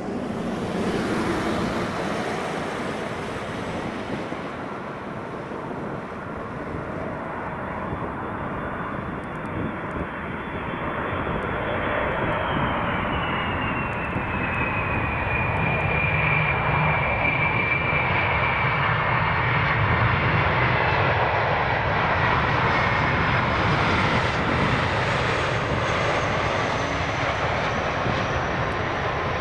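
Jet airliner's engines passing by. The roar builds to a peak in the second half, with a whine that falls in pitch as the aircraft goes past.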